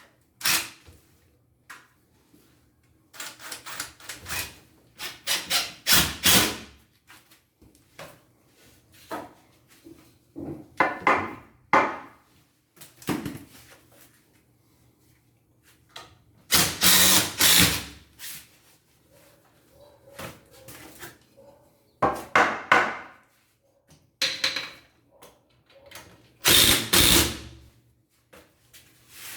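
Work on installing a wooden table: a power drill runs in several short bursts, the longest about a second and a half, between knocks and handling of the wood.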